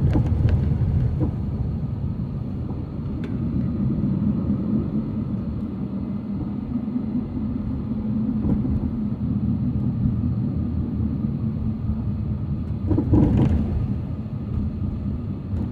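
Heavy road-construction machinery engine running with a steady low rumble, with one louder sharp clank or bang about 13 seconds in.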